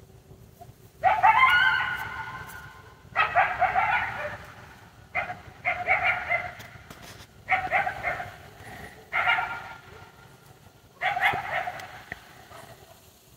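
Coyotes yipping and howling: about six bursts of high calls, a couple of seconds apart.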